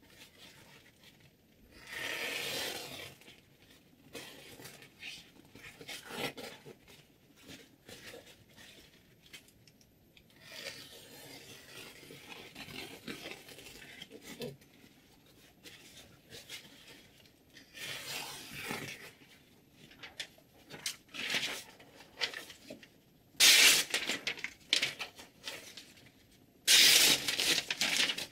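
Short, irregular scraping strokes of a chef knife's steel blade, each about a second long, with a longer stretch of lighter rubbing in the middle and the two loudest strokes near the end.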